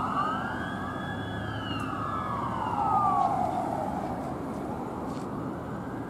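Fire engine siren wailing: it holds a high note, then slides down and fades about three seconds in, leaving road traffic noise.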